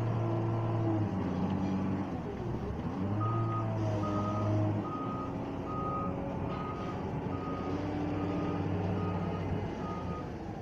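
Wheel loader's diesel engine running and revving up and down as it maneuvers. From about three seconds in, its reversing alarm beeps at an even pace, about one and a half beeps a second.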